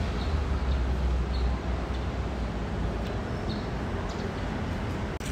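Urban street background noise: a low traffic rumble that eases off after the first second or so, with a few faint high chirps now and then.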